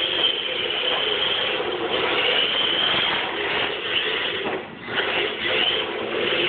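Small RC drift car driving on carpet: its motor and drivetrain gears whine, swelling and easing with the throttle, with a brief drop about two-thirds of the way in.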